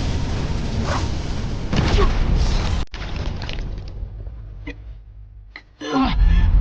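Loud rumbling blast sound effect that cuts off suddenly about three seconds in, followed by a few faint hits and, near the end, a loud burst with a short falling cry.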